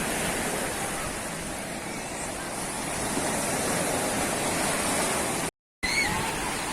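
Mediterranean sea waves washing on a sandy beach: a steady rush of surf that drops out for a moment about five and a half seconds in.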